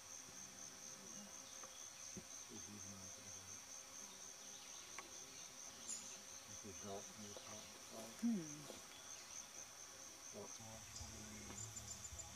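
A steady, high insect drone with a fine pulse, a chorus of insects in the heat of the day. About eight seconds in, a brief faint voice is heard in the distance.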